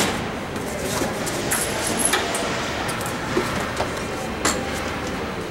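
Steel roll cage tubes of a UTV being handled and fitted into place, knocking and clanking several times over a steady background rumble.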